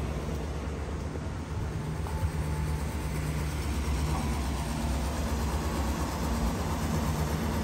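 An engine running steadily: a low, even hum with no change in speed.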